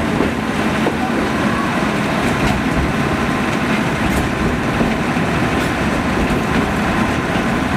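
Narrow-gauge forest railway train running, heard from aboard the coach: a steady rumble of wheels on the rails and the running gear, with a few light ticks.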